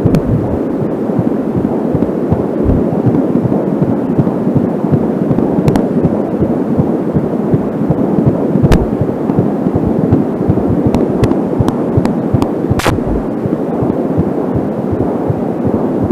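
Angelsound handheld fetal doppler picking up a 13-week fetal heartbeat: a fast, pulsing whoosh through the doppler's speaker. It is broken by several sharp crackles of static, which the uploader puts down to the doppler's short audio cable being pulled tight.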